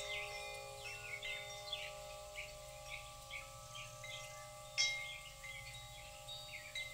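Chimes ringing softly: several long, overlapping held tones with lighter high tinkles scattered over them, and one brighter strike about five seconds in.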